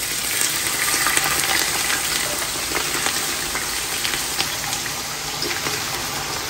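Sliced onions frying in hot oil in a large stainless-steel pot: a steady sizzle full of fine crackles, fading slightly toward the end, as a fresh batch of onions hits the oil.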